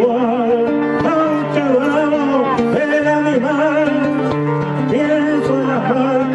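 A man singing a folk song to his own acoustic guitar, his voice wavering in a strong vibrato over steady held notes underneath.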